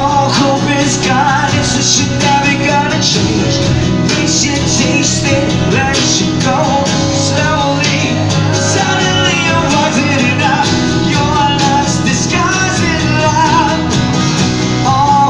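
Live acoustic band music: a male vocalist singing over several acoustic guitars.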